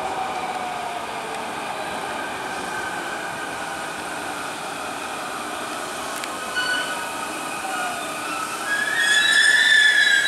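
JR West 223 series electric train pulling into the station and slowing, its motor whine gliding down in pitch as it brakes. A louder high-pitched squeal rises near the end as it nears a stop.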